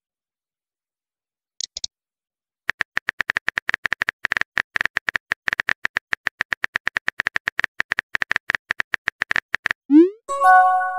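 Rapid, evenly spaced tap clicks of a texting app's keyboard typing sound effect, running for about seven seconds. Near the end comes a short rising sweep and a brief multi-tone chime as the message sends.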